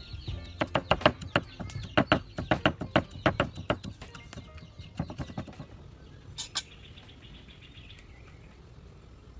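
A meat cleaver chopping and mincing garlic and shallots on a round wooden chopping board: a quick run of sharp chops, about four or five a second, stopping after about five seconds. One more sharp clack comes about six and a half seconds in, and faint bird chirps sound near the end.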